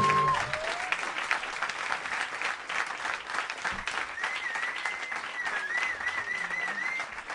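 Concert audience applauding at the end of a song, with a wavering high tone over the clapping from about four seconds in.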